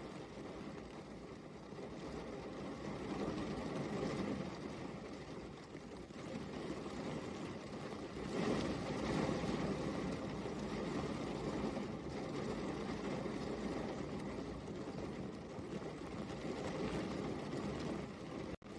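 Steady rain falling, an even hiss that swells a little about halfway through, with a brief dropout near the end.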